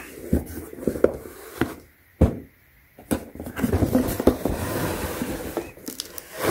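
A long cardboard product box being handled and turned over: a few sharp knocks, then a stretch of cardboard rubbing and sliding under the hands.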